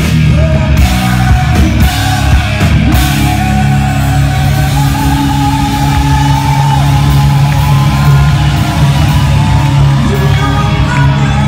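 Rock band playing live: drum kit, electric guitar and bass, with a woman singing over them, holding one long note in the middle.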